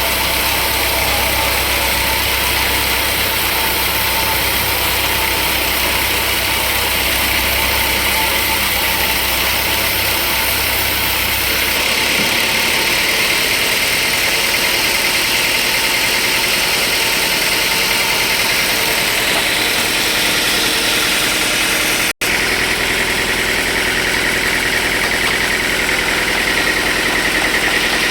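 Sawmill machinery running steadily, a loud, even mechanical noise with a strong high hiss. A low hum underneath stops about halfway through, and the sound cuts out for an instant near the end.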